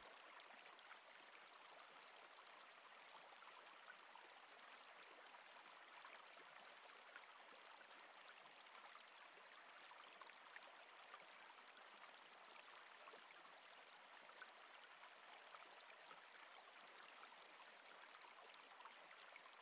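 Faint, steady sound of a flowing river.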